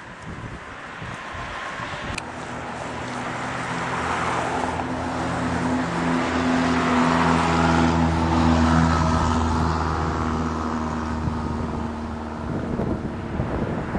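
Norfolk Southern freight train's diesel locomotive engines droning as the train approaches, growing steadily louder, loudest about two-thirds of the way through, then easing off.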